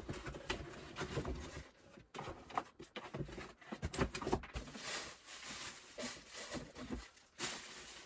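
Rustling and clattering of small objects being handled and moved about, irregular knocks and clicks, as someone rummages through things searching for a battery.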